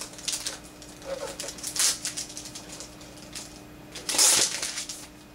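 Thin plastic wrap being peeled off a new Mac Mini, crinkling in irregular bursts, with the loudest crinkle about four seconds in.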